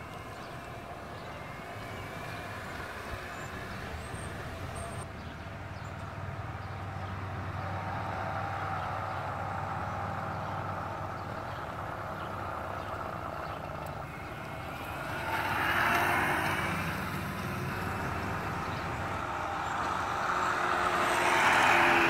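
Electrically converted 1977 Peugeot 103 moped, its 48-volt 1800-watt motor driving through a 2.5-inch pulley, running as it is ridden along the street. The sound swells about two-thirds of the way in and is loudest near the end, as the moped comes past close by.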